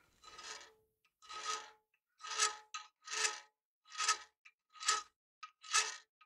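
A round file rasping back and forth across the spine of a steel knife blade held in a vise, cutting a notch: seven even strokes, a little under one a second, each with a faint ring from the blade.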